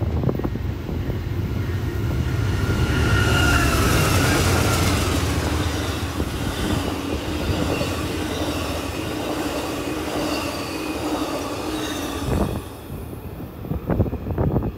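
Amtrak Superliner passenger train passing close at speed: a steady rumble of wheels on rail, with a high squeal from the wheels about three to five seconds in. The noise drops away about twelve seconds in as the last car goes by, leaving wind buffeting the microphone.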